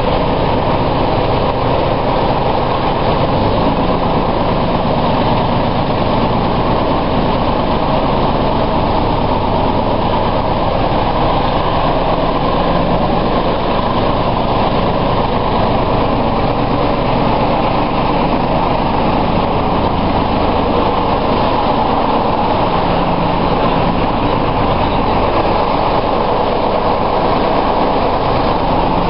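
British Rail Class 07 diesel shunter D2994's engine running steadily as it hauls a train slowly, heard from the carriage with wheel and track noise.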